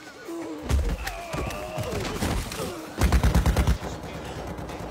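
Action-film battle sound effects: scattered sharp shots or hits, then a rapid burst of them about three seconds in, with shouting cries between.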